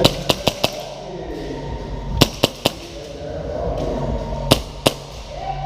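Airsoft guns firing single shots in quick groups: four sharp cracks at the start, three more about two seconds in, and two about four and a half seconds in.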